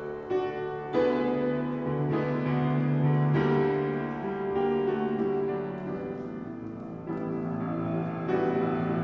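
Grand piano playing the introduction to a choral anthem, chords struck roughly once a second and left ringing.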